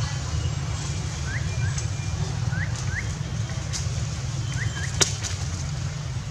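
Steady low outdoor rumble with about six short rising chirps scattered through the middle, and one sharp click about five seconds in.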